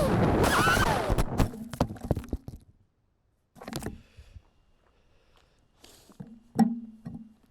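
FPV racing quadcopter's motors whining with shifting pitch, then a crash: a few sharp knocks as the quad tumbles to a stop. Further on, a short burst of noise and a faint low hum with one sharp click.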